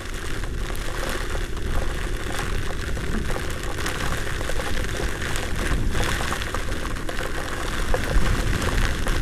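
Storm wind and heavy rain rushing over the microphone of a moving scooter: a steady noisy rush with a deep rumble of wind buffeting, and a few sharper taps scattered through it.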